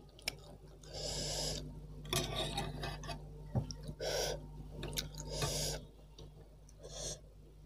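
A woman breathing hard through her mouth, about five sharp breaths of air drawn and blown out in turn, as the very spicy soup burns. One light click a little past halfway.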